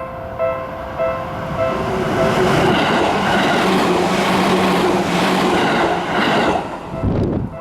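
Japanese railway level-crossing warning bell ringing about twice a second, then a Seibu Tamagawa Line train passes over the crossing, its running noise drowning the bell from about two seconds in and cutting off sharply near the end.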